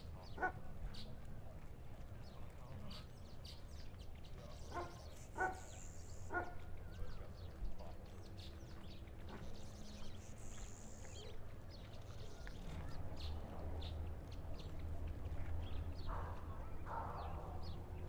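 Brief animal calls scattered over a steady low rumble, with several short ones close together about five seconds in and two longer ones near the end.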